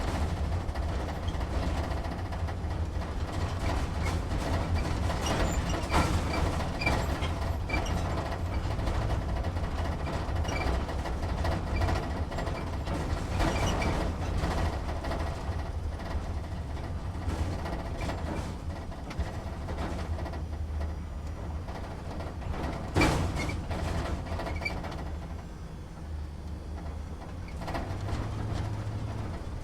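Inside a truck's cab driving slowly: a steady low engine rumble with the cab shaking, rattling and clicking over it, and one sharp knock about three quarters of the way through.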